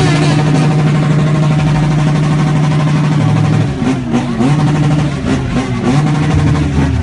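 Straight-piped F800 engine running with a loud, steady rumble, its pitch wavering up and down a few times in the second half.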